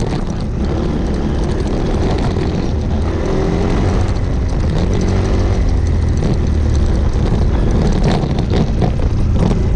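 Single-cylinder motorcycle engine running steadily under way on a rough dirt trail, with a few sharp knocks and rattles from bumps near the end.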